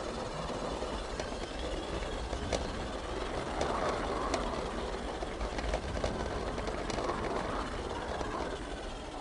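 Garden railway train running along its track: a steady rumble of the wheels on the rails, heard from on board, with a few sharp clicks here and there.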